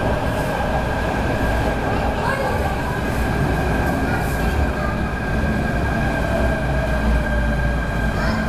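MTR K-Train electric multiple unit pulling into an underground platform and slowing: a steady low rumble of wheels on rail under a high, even whine from the train's traction equipment.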